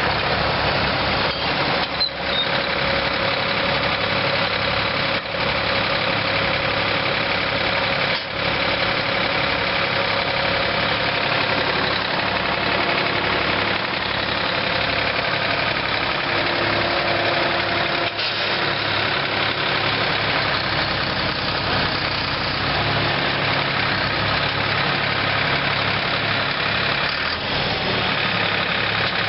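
New Holland 3930 tractor's three-cylinder diesel engine running steadily, with a few brief dips in the sound.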